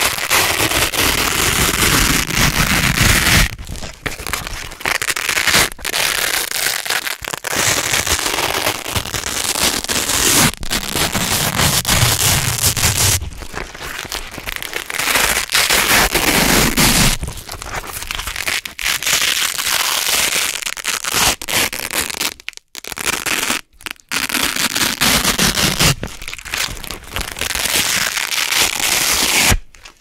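Red Velcro hook-and-loop strips being peeled apart slowly by hand: a series of long, dense crackling rips, several seconds each, with short pauses between them.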